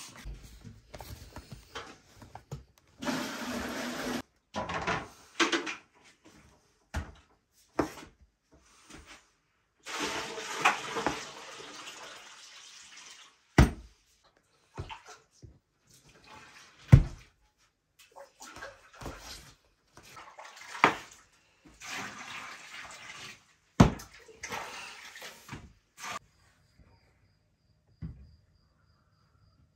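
Hands working bread dough on a wooden table: irregular stretches of rubbing and squelching as dough is kneaded, divided and shaped into rounds, with a few sharp thuds as pieces are slapped down.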